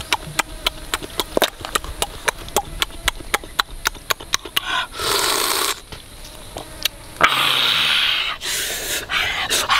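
Cooked crab shell being crunched and cracked while eaten, a rapid run of sharp clicks and crackles. About five seconds in comes a short slurp from a bowl held to the mouth. Later comes a loud breathy gasp with the mouth wide open.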